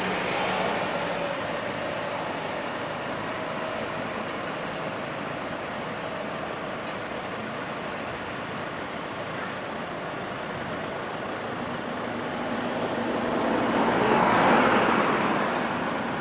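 Electric multiple-unit train running through the station, a steady rumble that swells to its loudest about fourteen seconds in and then eases off.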